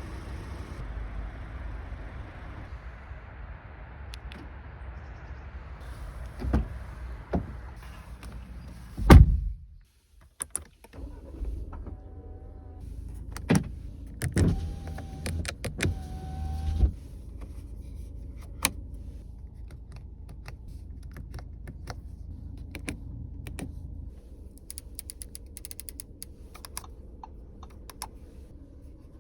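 Interior sounds of a 2023 Audi A4 Avant: a car door shuts with a heavy thud about nine seconds in, cutting off the outside rumble. Electric power-window motors then whine in several short runs, with knocks and later many small clicks of switches and buttons.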